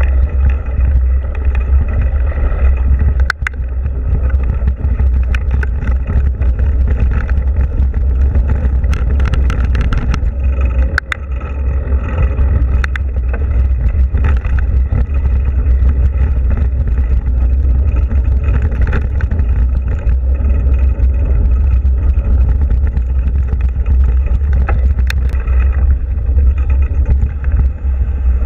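Mountain bike rolling fast over a dirt and gravel trail, heard through a bike-mounted action camera: a steady low rumble of wind and vibration on the microphone, with scattered sharp clicks and knocks as the bike jolts over stones and roots.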